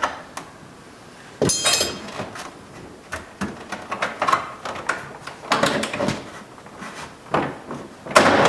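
Plastic retaining clips of a GMC Sonoma interior door panel popping loose as the panel is pried off the door, with scattered clicks, knocks and rubbing of the panel. There is a sharp crackling snap about one and a half seconds in and another loud knock near the end.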